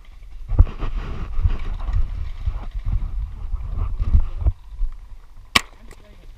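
Wind buffeting the camera's microphone in gusts, a heavy low rumble that dies away about four and a half seconds in. A single sharp crack follows about a second later.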